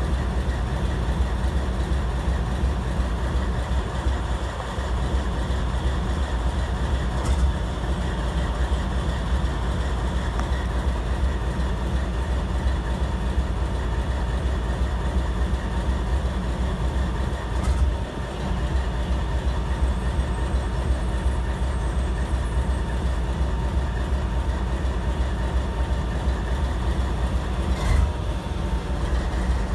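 CSX freight train moving through a rail yard: a steady rumble of wheels on track, with three sharp knocks about ten seconds apart.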